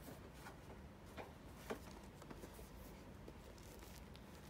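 Faint rustling and a few soft clicks in the first two seconds as a high-top sneaker is handled in the hands and set down.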